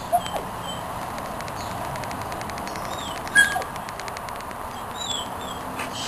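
Outdoor ambience: birds give short, falling high chirps over a steady hiss, with one sharper, louder chirp a little past halfway. A few brief whines and some faint ticking come in among them.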